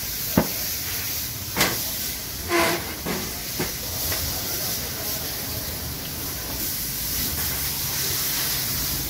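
A few short knocks and taps as a motorcycle seat's plastic base and foam are handled on a workbench, over a steady hiss. The knocks fall in the first four seconds.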